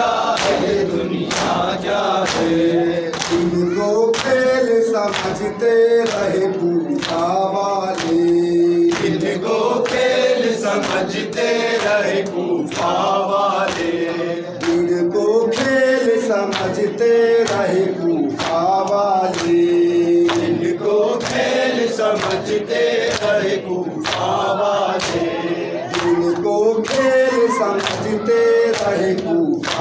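Men singing a noha together in unison, a lead reciter on a microphone with the group, over a steady beat of hand slaps on chests (matam) keeping time.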